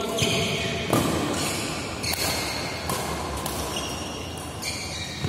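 Badminton rally: several sharp racket hits on a shuttlecock, with court shoes squeaking in short high chirps on the floor.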